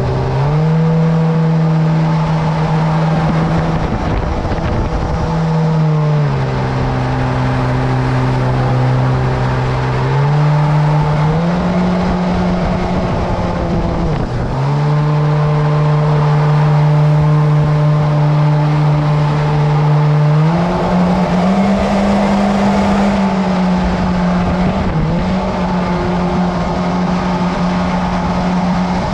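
Boat motor running at speed. Its pitch drops and climbs back several times as the throttle is eased and opened again, over a steady rushing noise.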